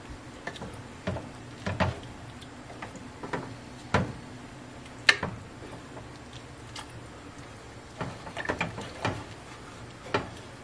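Wooden spoon stirring a pot of brothy soup, knocking irregularly against the pot's sides and bottom, with one sharper knock about five seconds in.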